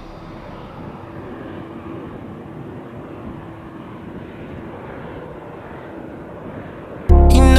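Steady, even rumble of a jet aircraft's engines, with a faint steady hum. Loud music cuts in suddenly near the end.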